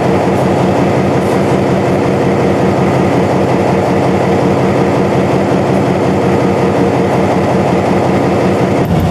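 EMD SW1500 switcher's diesel engine idling steadily while the locomotive stands at a signal.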